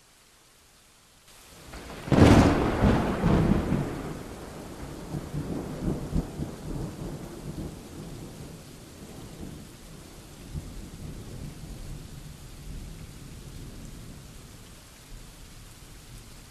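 A thunderclap about two seconds in: a sharp crack that rolls away in low rumbles over several seconds, with a steady rain hiss underneath.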